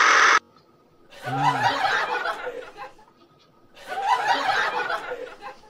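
A loud steady noise cuts off suddenly just after the start. Then come two bursts of laughter, each about two seconds long, with a short pause between them.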